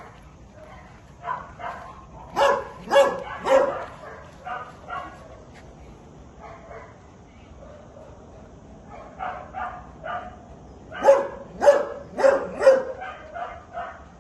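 A dog barking at cats through wire mesh, in bouts of short, sharp barks. The loudest come in two runs of three or four barks, one a couple of seconds in and one near the end, with softer barks between.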